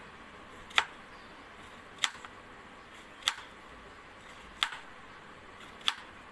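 Kitchen knife slicing a star fruit on a cutting board: five sharp knocks as the blade comes down through the fruit onto the board, about one every second and a quarter.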